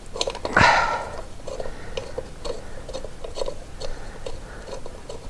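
Light irregular clicking and tapping of metal parts as a motorcycle's front sprocket cover and its bolts are handled and fitted, with one louder knock and clatter about half a second in.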